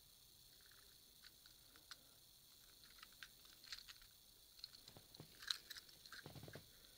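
Faint scattered clicks and light handling noise from a small toy train engine being turned over in the fingers, with a sharper click about five and a half seconds in and a brief low rustle just after.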